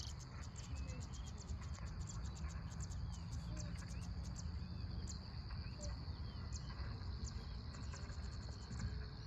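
Insects chirping steadily in the grass, a fast, high ticking trill that never stops, over a low, steady rumble.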